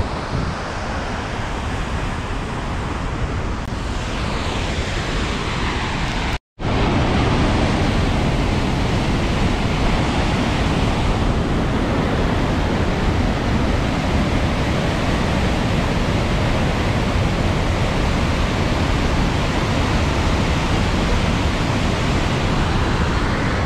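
Waterfall and white-water mountain torrent rushing steadily and loudly. The sound cuts out for an instant about six seconds in, then returns slightly louder.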